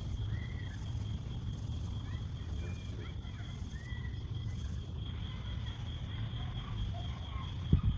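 Outdoor ambience: a steady high insect trill over a low rumble, with scattered short bird chirps and a single thump near the end.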